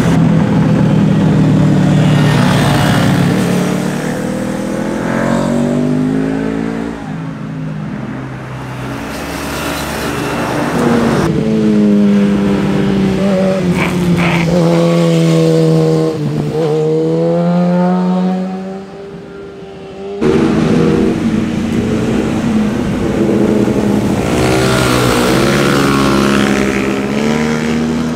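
Sport motorcycles passing one after another through a corner, each engine note dropping as the rider rolls off and then climbing again as it accelerates out. There are three separate passes, with sudden switches from one bike to the next.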